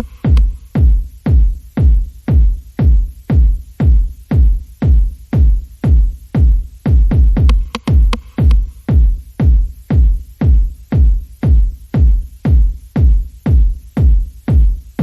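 Electronic background music with a heavy, steady kick-drum beat about twice a second.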